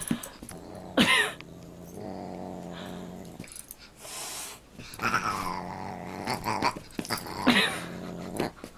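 Dog growling steadily while play-fighting, broken by high-pitched cries about a second in, around five seconds and again near the end.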